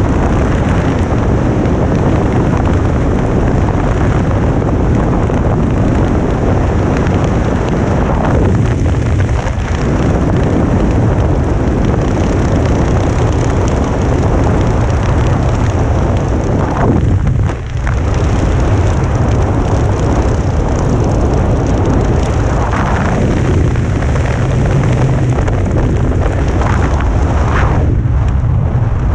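Wind blasting steadily across the camera's microphone in flight under a canopy, a loud, deep rumbling rush. It swells briefly a few times and dips for a moment about halfway through.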